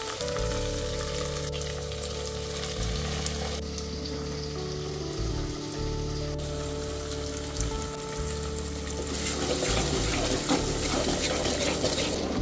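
Chopped onions, green chillies and curry leaves sizzling as they fry in oil in a metal pot. The sizzle eases in the middle and picks up again near the end, over soft background music with sustained low notes.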